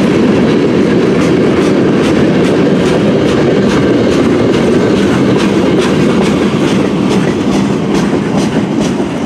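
Freight cars of a Canadian National mixed freight train rolling past close by: a steady loud rumble of steel wheels on rail, with repeated clacks several times a second as the wheels cross rail joints.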